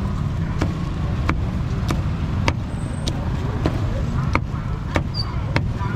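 Cleaver chopping roast pork on a chopping board in a steady rhythm, about three chops every two seconds, over a low traffic rumble.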